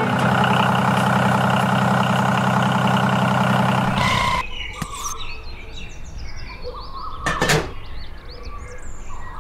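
Miniature model power tiller running with a steady mechanical drone that cuts off suddenly about four seconds in. After it, birds chirp in the background and there is a single short knock near the end.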